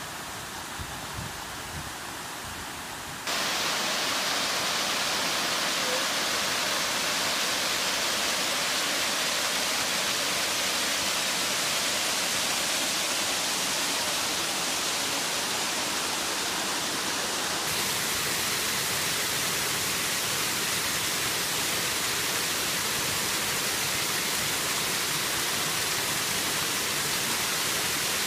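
Flood-swollen waterfall and creek: a steady rush of water pouring over rock, jumping louder about three seconds in and shifting in tone again a little past halfway.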